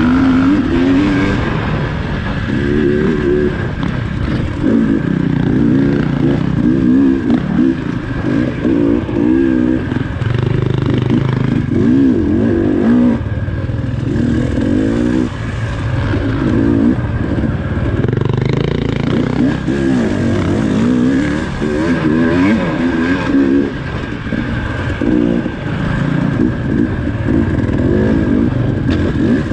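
Enduro dirt bike engine, heard from on the bike, revving up and falling back over and over as the throttle is worked, with no pause.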